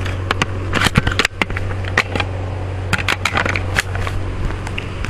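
Handling noise of an airsoft sniper rifle with a camera taped to its scope: irregular clicks and knocks as the gun is moved, over a steady low hum.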